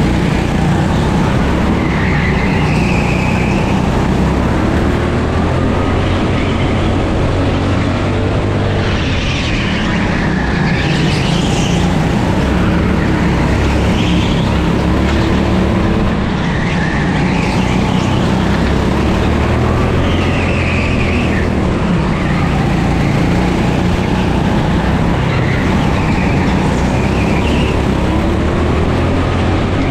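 A 9 hp rental kart engine running at race pace, its pitch wavering with the throttle, with high tyre squeals coming and going through the corners every few seconds.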